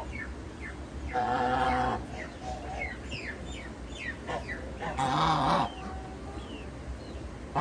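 Farmyard fowl calling: two loud, drawn-out calls, one about a second in and one about five seconds in, over a run of short, high, falling chirps.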